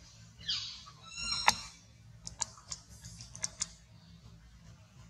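Baby macaque squealing: a short high cry about half a second in, then a longer pitched squeal peaking around a second and a half in. Several sharp crackles follow from the dry leaf litter.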